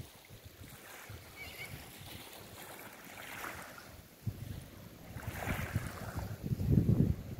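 Gusty wind buffeting the microphone, light at first and growing much stronger near the end.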